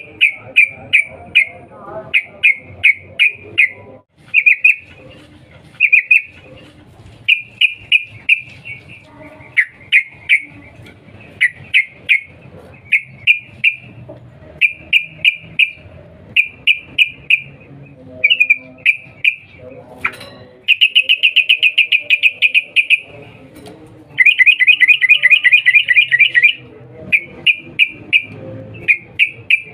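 Yellow-vented bulbul calling in an agitated state: loud, sharp "cuk cuk" notes in quick groups of three or four. Twice in the second half it breaks into a long, fast chattering run of about two seconds.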